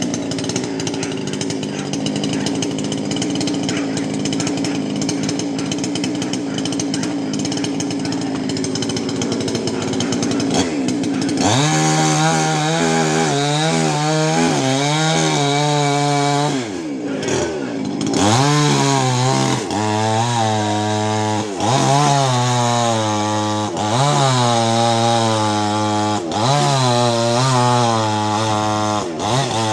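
Chainsaw running throughout while cutting a tree. About a third of the way in it goes to a clear high engine note whose pitch drops and climbs back again about every two seconds as the throttle is eased and reapplied.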